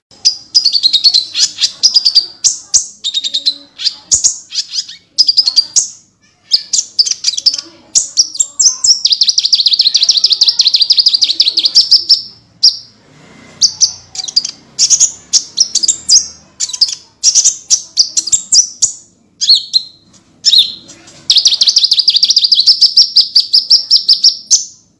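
Kolibri ninja sunbird singing vigorously: bursts of rapid, high-pitched chattering notes broken by short pauses, and two long fast trills, one in the middle and one near the end.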